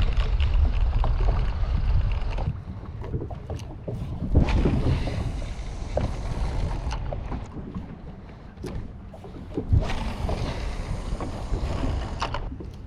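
Wind buffeting the microphone in gusts that swell and ease, over a small boat on the water, with a few short knocks.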